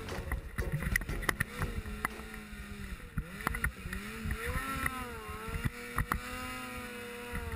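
Ski-Doo snowmobile engine running through deep powder, its pitch rising and falling as the throttle is worked, with scattered sharp knocks and thumps throughout.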